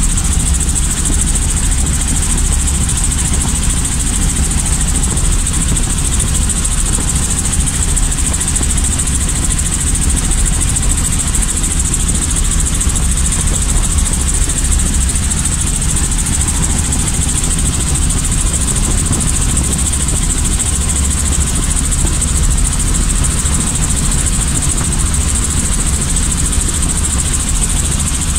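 Helicopter engine and rotor running steadily: a constant loud drone with a steady high hiss on top.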